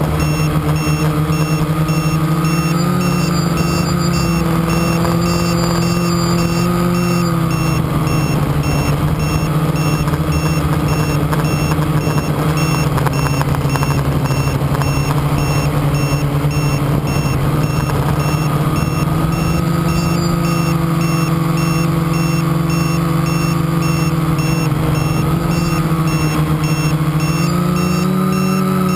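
Quadcopter's electric motors and propellers whining steadily, the pitch shifting up and down a little as the throttle changes.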